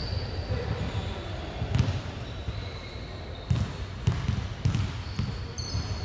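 A basketball bounced on a hardwood gym floor: a thud, then a run of four thuds about half a second apart, as a free-throw shooter dribbles before the shot. There is a short high squeak near the end.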